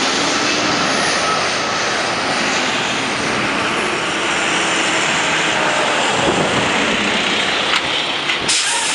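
Boeing 767 airliner's jet engines, a loud, steady noise as it passes low overhead on landing approach.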